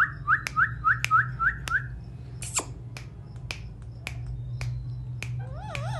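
Pet parrot chirping a quick run of about seven short rising notes, then a single falling call, with wavering whistled notes near the end. A steady clicking, about three clicks a second, runs underneath.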